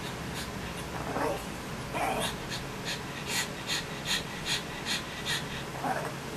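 A wet pet making breathy noises: a run of about ten quick breathy puffs, roughly three a second, in the middle, with a few soft whine-like sounds around them.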